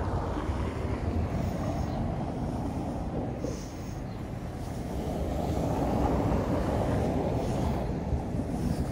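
Steady low rumble of city road traffic, swelling about five seconds in and easing off near the end.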